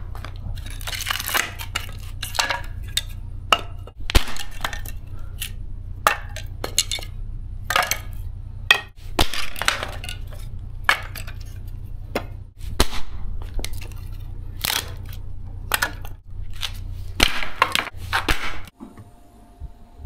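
Dry wooden slats being snapped into kindling: a long, irregular series of sharp cracks and splintering, stopping about a second before the end, over a steady low rumble.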